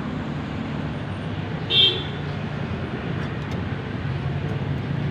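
Honda CR-V engine idling steadily, with a short high-pitched toot about two seconds in.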